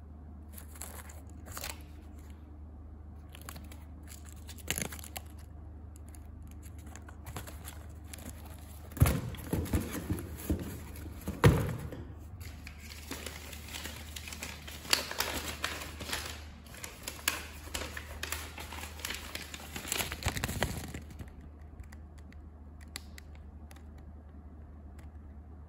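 Rustling and crinkling of paper and cardboard as shoes are handled in a cardboard box and a creased paper invoice is pulled out and unfolded. Sharp knocks about nine and eleven seconds in, with a steady low hum underneath.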